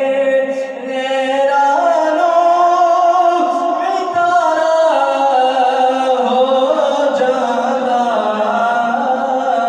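A man singing a Punjabi naat, drawing out a long wordless phrase in held notes that step up and down in pitch every second or two.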